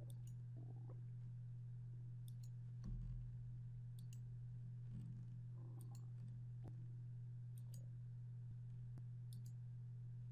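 Faint computer mouse clicks, a dozen or so scattered through the stretch, several in quick pairs, over a steady low hum.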